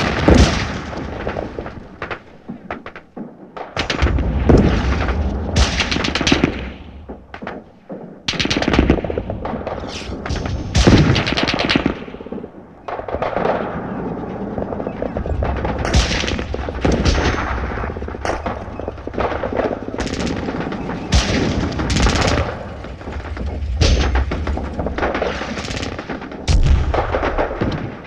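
Battle sound effect: machine-gun bursts and rifle shots over a continuous din of low booming explosions, like artillery.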